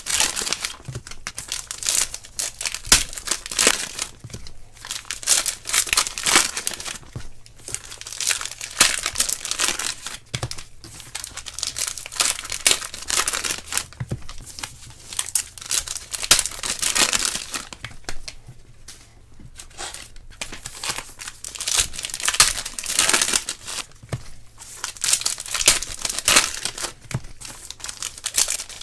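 Trading-card pack wrappers being torn open and crinkled by hand, in repeated clusters of crackling.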